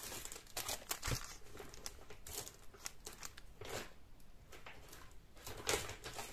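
Clear plastic packets of aluminium craft wire crinkling as they are handled and laid down, in scattered, irregular rustles and crackles.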